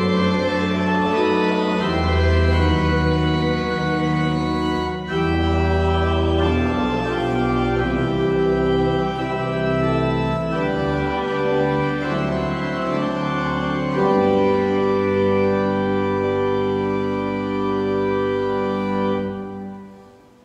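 Church organ playing slow sustained chords over a deep pedal bass, ending on a long held final chord that dies away near the end.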